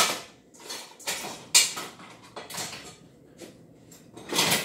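Kitchen things being handled off-camera: a string of short clunks and rustles, as of someone rummaging through a kitchen drawer or cupboard.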